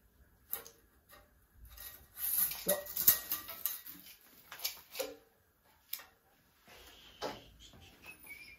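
Hands working the metal vise and table of an Epple BS 125 GS metal band saw, with the motor off: irregular clicks, knocks and a scraping rub of metal parts, busiest about two to three seconds in. A bird chirps near the end.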